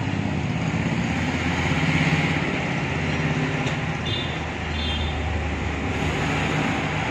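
Steady low rumble of a vehicle engine running, with two brief faint high chirps about four and five seconds in.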